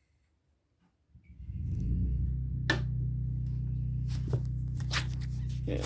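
Portable generator engine running with a steady low hum, which starts about a second in after silence. A couple of sharp clicks sound over it.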